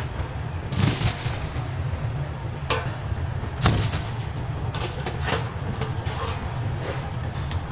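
A pan-load of braised chicken feet tipped out onto a paper-covered table, landing in a heavy clatter about a second in. Scattered sharp knocks and clanks of kitchen pans and utensils follow, the loudest near the middle, over a steady low hum.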